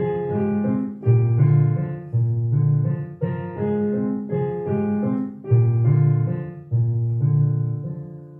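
Digital piano played with both hands: a melody over a bass line of held low notes and chords, struck in steady succession. The last chord is left to die away near the end.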